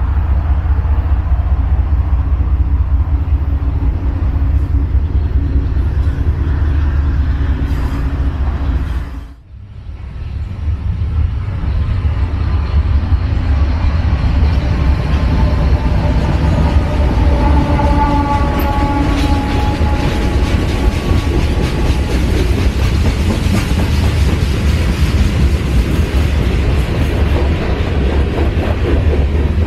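Freight train passing: the rumble of diesel locomotives mixed with passing highway traffic, then, after a brief drop in sound about nine seconds in, a long freight train of hopper and tank cars rolling by on the rails. A pitched sound stands out over the rumble for a few seconds past the middle.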